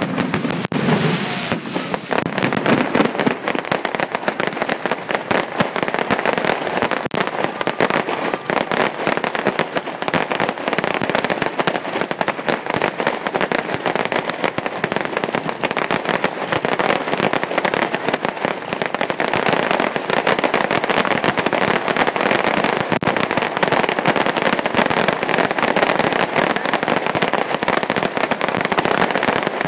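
Fireworks display in a sustained volley: a dense, unbroken run of crackles and bangs, many per second, holding steady in loudness throughout.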